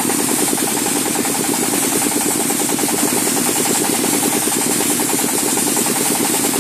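Small stationary diesel engine running steadily with a fast, even chug while it powers a wet sandblasting machine, under a steady hiss of the wet sand jet.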